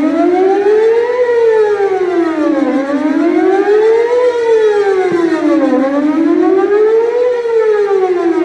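Whelen WPS-4008 electronic outdoor warning siren sounding a test tone whose pitch glides steadily up and down, about one rise and fall every three seconds. Its rotator is broken, so the level holds steady instead of swelling and fading.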